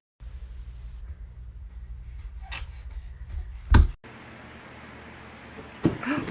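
A small footstool rubbing across carpet as a toddler pushes it, a low dull scraping that ends in one loud knock about four seconds in. After that comes a faint steady hiss.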